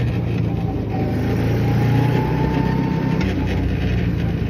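Car engine running with steady road and wind noise, heard from inside an open-top car, with a faint whine that rises slowly in pitch during the first three seconds.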